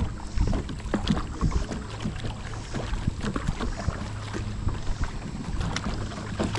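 Kayak on moving river water: water splashing and rushing around the hull, with irregular knocks and taps from paddling.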